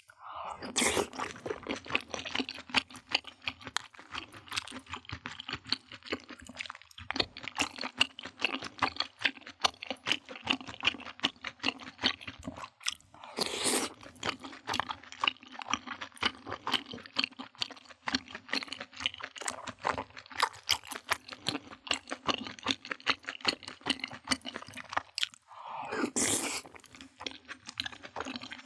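A person chewing and crunching food with many small crisp clicks, with a louder, longer burst about halfway through and another near the end.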